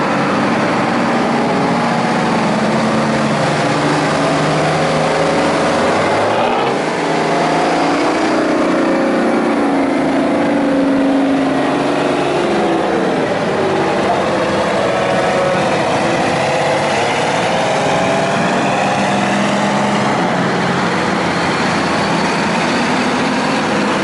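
Heavy Brockway trucks driving past one after another, their engines running loud and steady, with the engine pitch rising and falling as each truck goes by.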